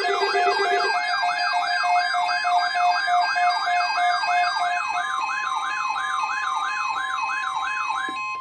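Electronic siren sweeping rapidly up and down, about three times a second, layered with steady alert tones: a lower tone stops about a second in, another about five seconds in, and a steady higher tone joins around then. Everything cuts off abruptly at the end.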